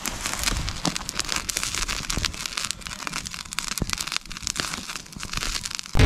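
Wood campfire crackling, with many irregular sharp pops and snaps.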